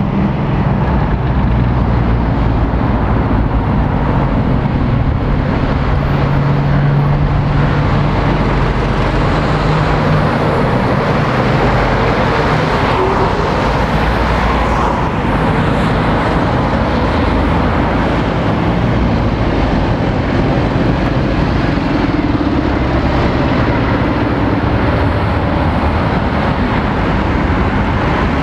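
Road traffic through a roundabout: an articulated lorry's diesel engine running as it comes round and passes close, about halfway through, with cars and tyre noise throughout.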